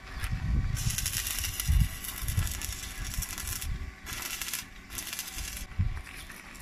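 Stick (arc) welding: the electrode's arc crackling and hissing in several runs, the longest about three seconds, with short breaks between them. Low thumps sound underneath, the loudest about two seconds in.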